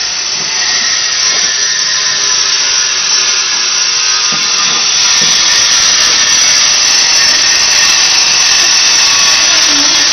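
A power tool running steadily with a loud high hiss, growing louder about five seconds in.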